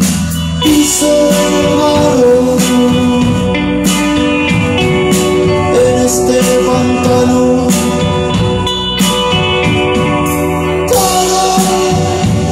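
Band music: a singer holding long notes over guitar and drums at a steady beat.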